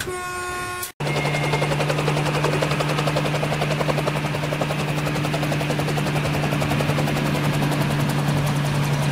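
Electric commuter train passing through a station: a steady low hum under a fast, even rhythmic chopping rattle. It starts after a short pitched tone and a sudden cut about a second in.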